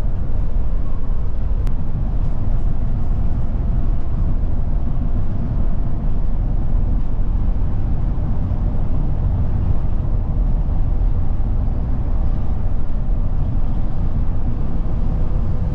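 In-cab running noise of a Scania K410 double-decker coach cruising on a highway: a steady low rumble of engine and tyres heard from the driver's cab.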